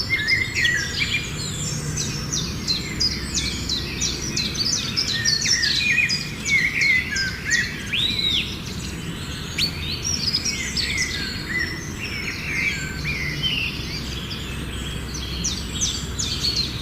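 Many birds chirping and calling at once: a busy chorus of short chirps, trills and whistles, over a steady low background rumble.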